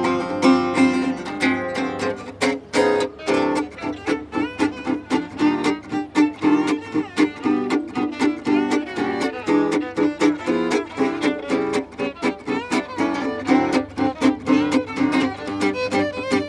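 Gypsy-jazz duo: a Selmer-style acoustic guitar strumming a steady chord rhythm while a violin plays a fast swinging melody over it. The violin comes in a couple of seconds in, after a few ringing guitar chords.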